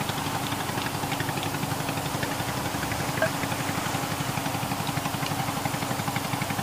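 An engine idling steadily with an even, rapid throb.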